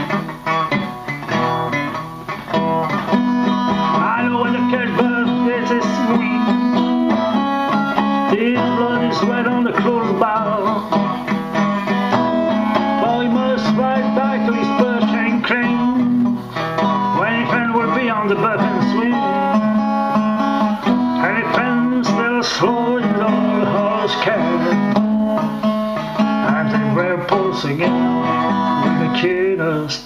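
Instrumental blues passage on plucked guitar, melody lines moving over a held low note, with no singing.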